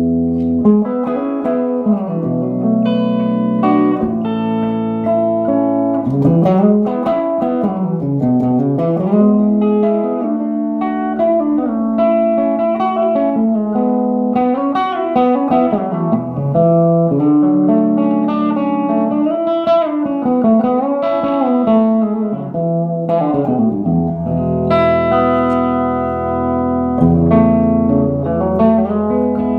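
Electric guitar played through a 1959 Airline 8500-S valve amplifier: sustained chords and single-note lines with slides and bends, the amp's natural sound with no added effects.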